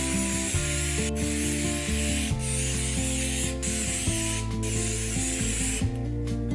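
Aerosol can of canola oil spraying in one long continuous hiss that stops about six seconds in, over soft background music.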